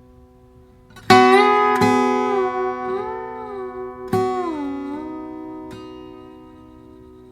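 Background music: a slide guitar plucks a few notes about 1, 2 and 4 seconds in, bending and gliding in pitch, then rings out and fades.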